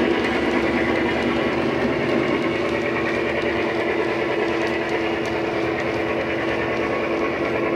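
A sound-fitted model Class 68 diesel locomotive's DCC decoder plays a recorded diesel engine running steadily, through its EM2 bass speaker and a small treble speaker. The model train's running noise on the track mixes in as it moves away.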